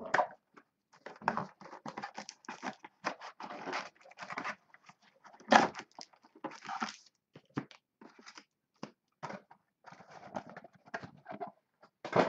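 Trading-card box packaging being handled and opened: irregular crinkling and rustling of wrapper and cardboard in short bursts, with the loudest rustle about five and a half seconds in.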